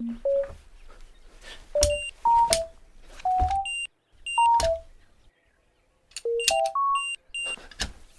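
Electronic beeping from a house-arrest ankle bracelet: a run of short electronic tones jumping up and down in pitch, with short high blips. Several sharp thumps come between the beeps, and it goes briefly silent a little past the middle.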